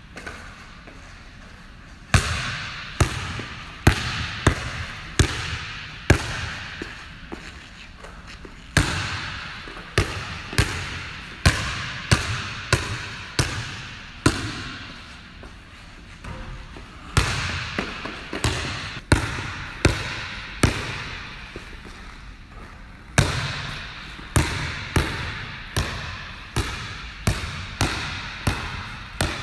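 Basketball being dribbled on a wooden gym floor: sharp bounces with a short echo after each. They come in runs of about one a second at first and quicken to nearly two a second near the end, with brief pauses between runs.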